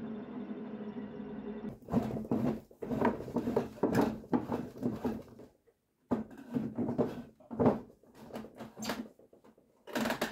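Woodworking handling sounds: irregular scraping and knocking of work on wood, in short spells with brief gaps. They follow a steady humming tone that stops under two seconds in.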